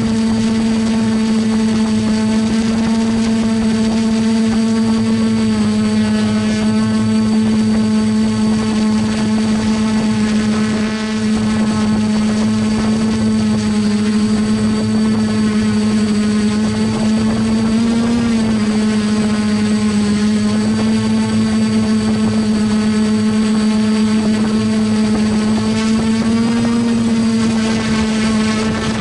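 Multirotor drone's electric motors and propellers, heard from its own onboard camera, whining steadily at one pitch. The pitch lifts briefly about two thirds of the way through and again near the end as the motors adjust thrust.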